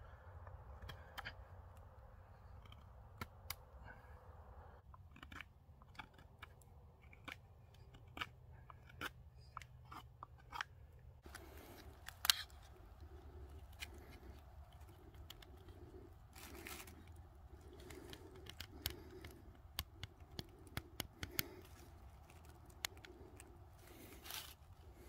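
Knife whittling a wooden stick: faint, irregular snicks and scrapes of the blade taking off shavings.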